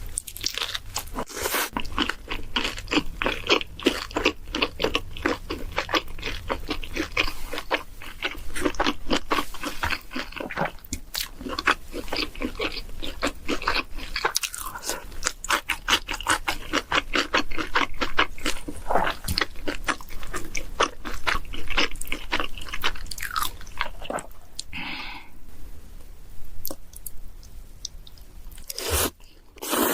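A person chewing and crunching food with quick, steady bites, easing off in a short lull near the end.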